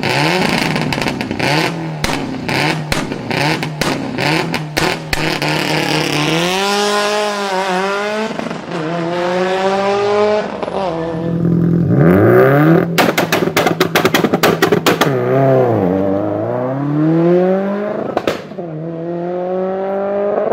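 Tuned performance car engine revving hard in repeated rising sweeps, like pulls through the gears. Rapid sharp exhaust pops, crackles and bangs cluster at the start and again about two thirds of the way through.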